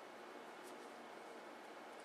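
Near silence: a steady low hiss with one faint click from a knitting hook working stitches over the plastic loom pegs, about a third of the way in.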